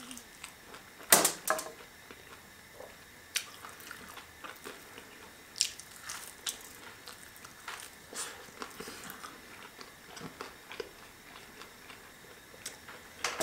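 A person eating cooked raccoon meat off the bone: quiet bites and chewing, with scattered short sharp clicks, the loudest about a second in.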